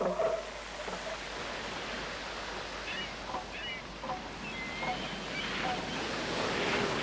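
Steady surf and wind on a beach. In the first second, the last few pulses of an elephant seal bull's rhythmic threat call trail off. A few faint high calls come in the middle.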